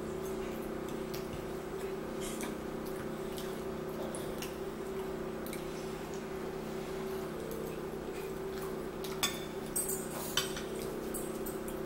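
Table eating sounds: a metal fork clinking and scraping against a plate and mouth sounds of chewing, with a few sharper clinks near the end. A steady low hum of several tones runs underneath.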